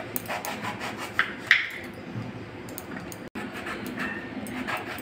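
Kitchen knife slicing lengthwise through eggplant, with irregular knocks of the blade on a wooden cutting board and some scraping. The sharpest knock comes about a second and a half in.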